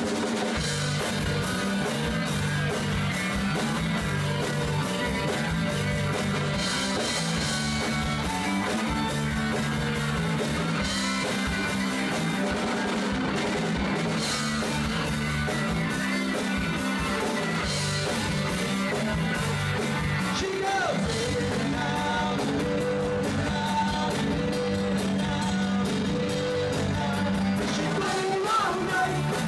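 Live rock band playing a song: electric guitar, bass and drum kit, with a singer's voice over them.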